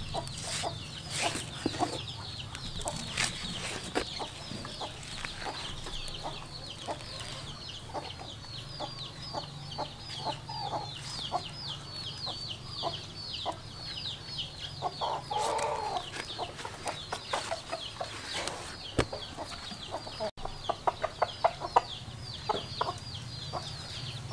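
Husks being torn and peeled off an ear of boiled corn by hand, with scattered crackling rips and a cluster of sharp snaps near the end. Behind it, chickens keep up a steady run of high, falling peeps several times a second, with a short cluck about two-thirds of the way through.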